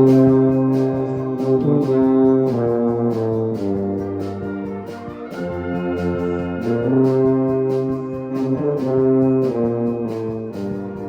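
Concert wind band playing, with brass holding full sustained chords over a low tuba line and a steady drum beat of about two strokes a second.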